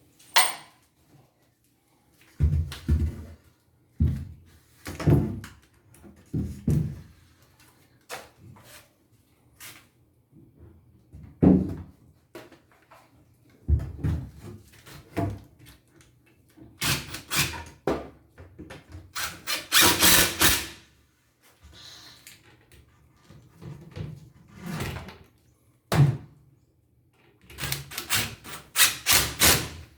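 Irregular thuds and knocks of furniture parts being handled and fitted while a table is installed, with a few longer scraping, rubbing stretches.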